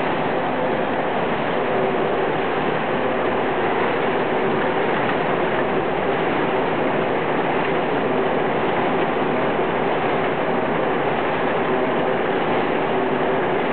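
Muller Martini Prima saddle-stitching line running: a steady, continuous mechanical noise from the feeder stations and drive, with a faint steady hum of tones under it.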